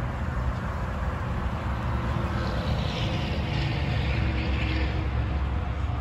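A large blackbird flock in a murmuration, a hissing rush that swells about two and a half seconds in and fades near the end, over a steady low rumble.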